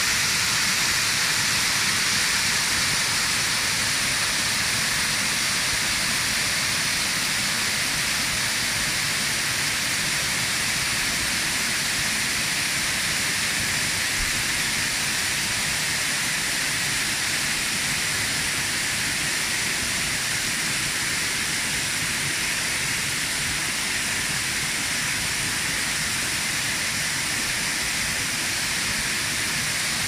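Waterfall: water pouring and splashing down tiered limestone cascades, a steady, even hiss of falling water that doesn't change.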